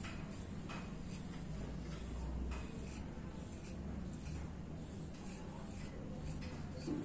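Gillette 7 O'Clock double-edge safety razor, fitted with a Topaz Platinum blade on its second use, scraping through lathered stubble under the nose in a series of short, quick strokes.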